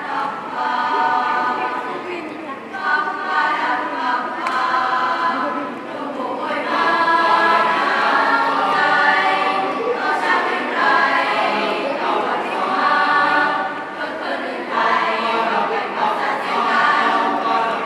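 Youth choir of boys and girls singing a song in harmony, in phrases with short breaths between them.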